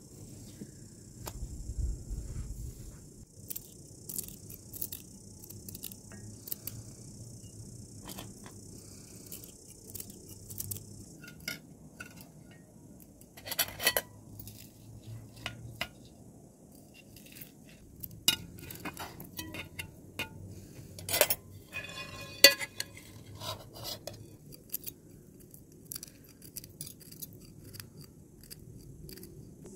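Metal spoons and cutlery clinking and scraping against metal plates and pans as food is served, in scattered light clinks with a few louder knocks around the middle.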